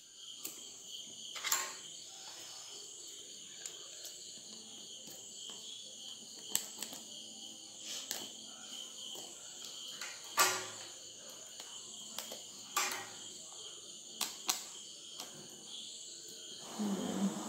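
Scissors snipping and picking at the seal on a cardboard phone box, giving scattered sharp clicks and taps. Under them runs a steady high-pitched chirring of insects.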